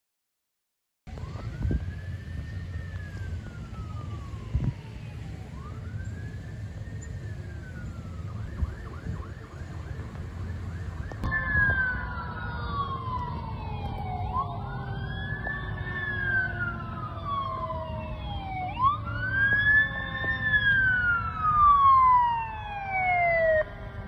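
Emergency vehicle sirens wailing, starting about a second in; each sweep rises quickly and falls slowly, repeating every three to four seconds. About eleven seconds in more sirens join and overlap, including the long, slowly falling wind-down of a mechanical Q siren, over a low engine rumble.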